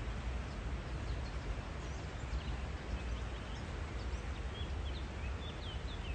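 Small birds chirping in short high calls, more often in the second half, over a steady low rumble of outdoor background noise.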